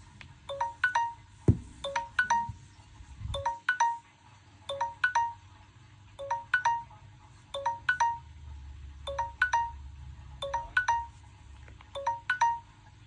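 Samsung smartphone ringing with a short, rising chime melody repeated about every second and a half. A single thump comes about one and a half seconds in.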